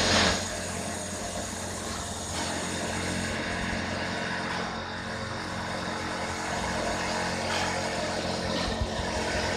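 Pool vacuum cleaner running with a steady motor hum, a little louder for the first moment and then even.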